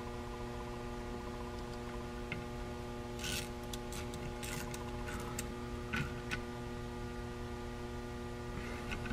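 Steady electrical mains hum, with a few scattered light metallic clicks from a small hand socket driver tightening the ignition timing sensor's bolts.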